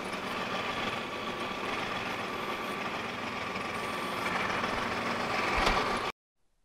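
Compact tractor engine idling steadily, with one sharp knock about five and a half seconds in. The sound cuts off suddenly near the end.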